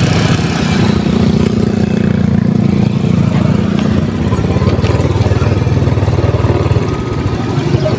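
Small motorcycle engine running steadily with a fast, even putter.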